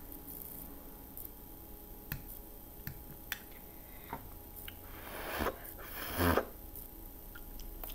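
Fork clicking and scraping against a small bowl while stirring and lifting canned ravioli in sauce: a few light clicks about two to three seconds in, then two brief louder noises around five and six seconds in.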